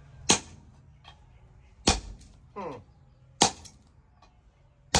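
Sledgehammer blows striking a handled tool held on a hot steel bar on the anvil, steel on steel: four sharp ringing strikes about a second and a half apart.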